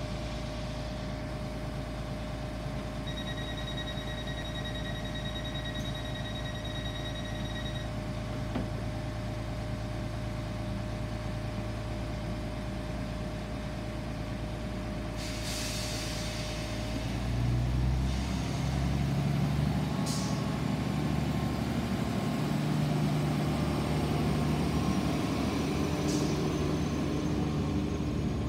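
Class 769 bi-mode train's underfloor diesel generator engines idling with a steady hum. A beeping door warning tone sounds for about five seconds near the start, and a hiss of air comes about halfway through. About 17 seconds in, the engines open up louder and the train pulls away with a rising whine near the end.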